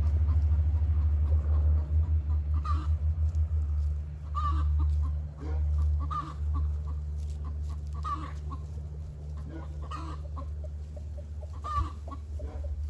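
A hen singing the egg song: repeated cackling calls about every second or so, starting a few seconds in. Under it runs a low steady rumble that pulses quickly at first.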